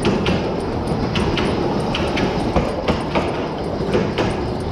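Small 0-4-2 tank steam locomotive on the move at low speed: a steady rumble with a regular clatter of sharp clicks, about two or three a second and often in pairs.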